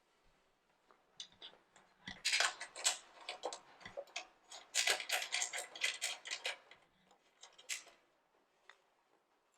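Socket ratchet clicking in several quick runs, running in the short bolts that fix the snowblower's discharge chute to its gear plate.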